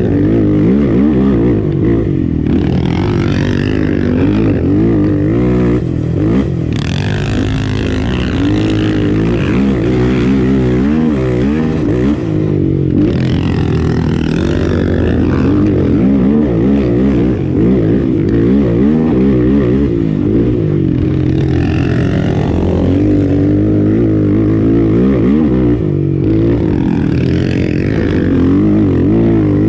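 Sport ATV's single-cylinder engine under way on a trail, its pitch rising and falling continually as the throttle is opened and closed, with a few short lifts off the throttle.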